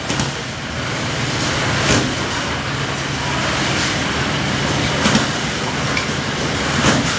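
Sugar-bagging machinery running with a steady hum, with about four sharp clacks spread through.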